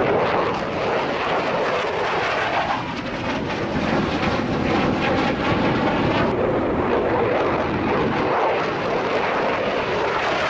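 F-16 fighter jet engine noise as the jet flies a display pass. It is continuous, with a rippling, sweeping quality in the middle as the aircraft passes.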